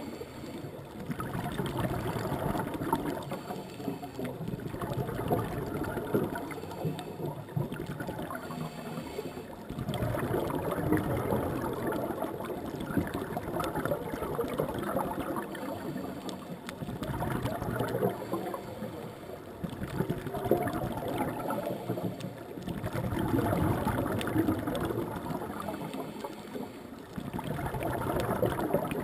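Scuba regulator breathing underwater: bubbly, gurgling exhales that swell and fade in slow cycles about six seconds apart, with quieter gaps between them.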